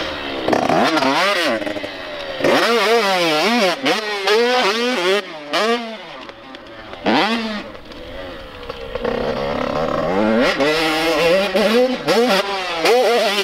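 Super Mini dirt bike engine being ridden hard, revving up and down again and again as the rider works the throttle through turns and over jumps, the pitch climbing and dropping every second or so.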